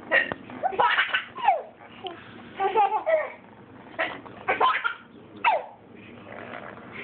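A baby laughing and babbling in several short bouts, amused by a woman's hiccups.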